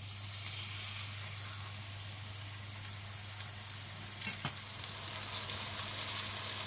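Sirloin steak sizzling in hot oil in a frying pan, the sizzle starting abruptly as the steak is laid in and holding steady, with a few sharp pops about four to five seconds in.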